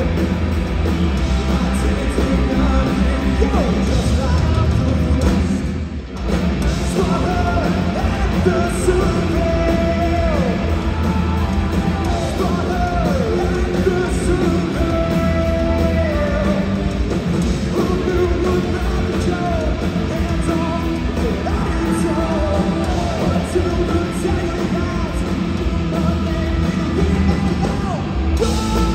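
Punk rock band playing live: distorted electric guitars, bass and drums, with sung and shouted vocals. The music drops out briefly about six seconds in and comes back in, with the vocal line running over it.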